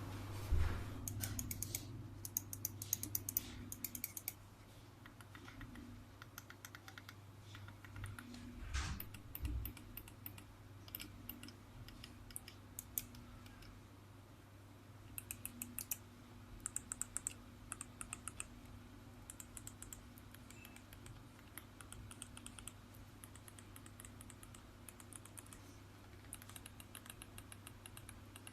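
Razer Naga Epic Chroma gaming mouse buttons being clicked in quick runs of sharp clicks, with pauses between the runs, over a steady low hum.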